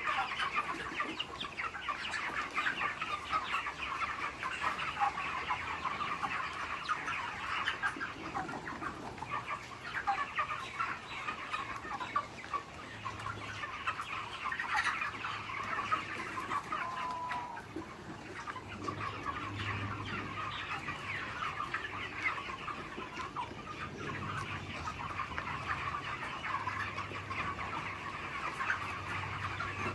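A flock of chickens clucking, a dense, unbroken chatter of many birds calling over one another.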